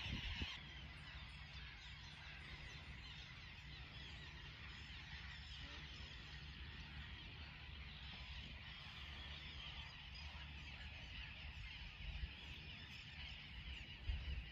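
Faint outdoor ambience of many birds calling together, water birds such as geese among them, over a steady low hum.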